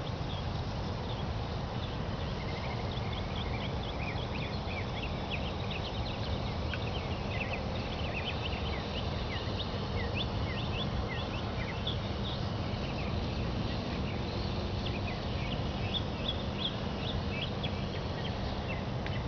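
Many small birds chirping, short quick notes one after another, over a steady low rumble.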